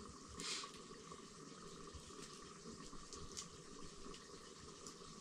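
Lidded pot simmering on a wood-fired clay stove: a faint, steady hiss, with a few soft clicks, the loudest about half a second in.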